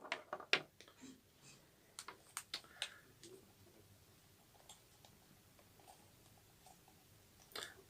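Faint clicks and taps of a plastic headset and its cable plug being handled and pulled out of a phone. They come in a quick scatter over the first three seconds, with one more click near the end.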